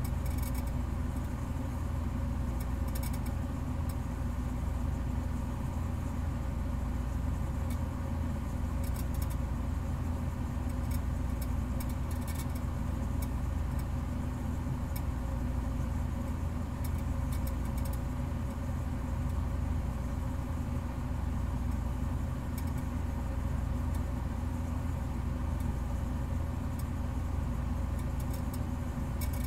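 A steady low mechanical hum, unchanging throughout, with a few faint scattered clicks.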